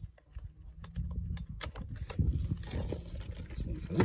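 Hands handling a chainsaw and its plastic parts: a few sharp clicks, then continuous rustling and knocking from about halfway, with a sharp knock near the end.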